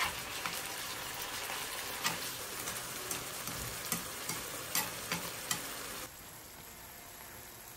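Pork belly cubes sizzling in a caramel sauce in a nonstick frying pan while being stirred with chopsticks that click against the pan now and then. About six seconds in the sound drops abruptly to a quieter steady hiss.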